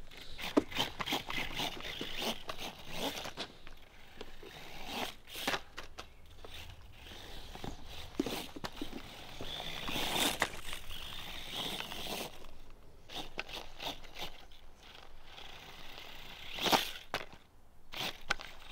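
Small RC truck with 3D-printed paddle tires driving through sand: irregular scraping and crunching, with scattered sharp clicks.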